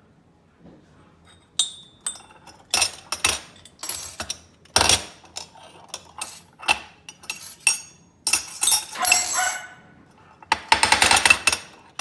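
Stainless-steel stovetop moka pot parts clinking and knocking against each other and the stone countertop as a capuchin monkey handles them: irregular sharp knocks, then a fast rattle of knocks near the end.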